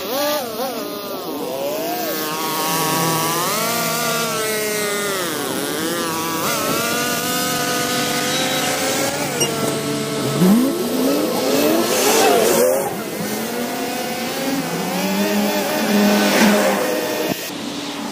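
Two-stroke gas string trimmer running as it cuts tall overgrown grass, its engine pitch rising and falling over and over with the throttle. The sound drops a little in level near the end.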